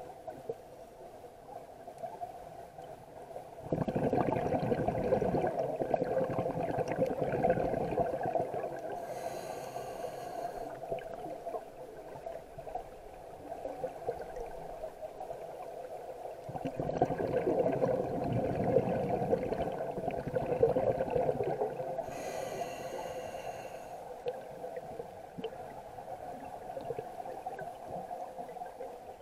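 A diver's scuba regulator breathing, heard underwater: two long bubbling exhalations, each followed by a short hissing inhalation.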